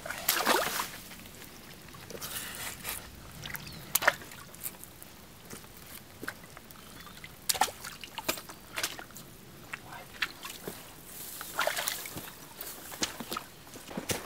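Footsteps of a person walking through forest undergrowth, with irregular twig snaps and the swish of grass and brush against legs and clothing.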